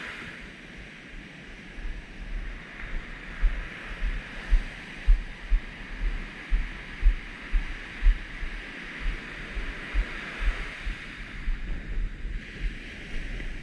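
Ocean surf breaking and washing up the beach in a steady hiss, with wind buffeting the microphone in irregular low thumps.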